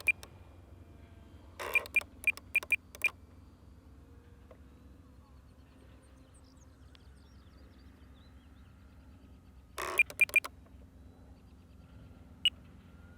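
Short electronic beeps from the RC transmitter as its controls are worked: five quick beeps about two seconds in, three more around ten seconds, and a single one near the end, over a faint steady background hum.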